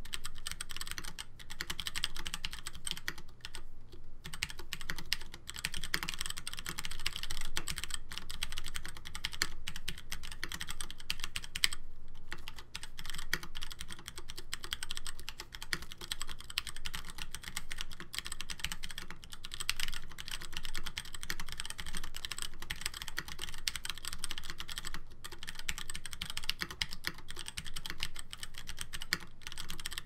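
Fast continuous typing on an OTD 456GT tenkeyless mechanical keyboard fitted with DCS-profile keycaps: a dense, irregular stream of key clacks with a harsh sound, broken by brief pauses a few times.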